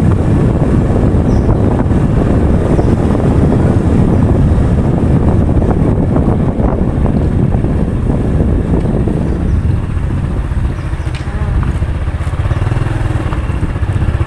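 Motorcycle engine running at low riding speed, with wind rushing over the microphone; the rush eases about ten seconds in, leaving the steadier low drone of the engine.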